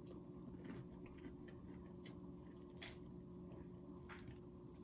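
Faint, close chewing of a bite of bread roll with jelly, with a few soft mouth clicks, over a low steady hum.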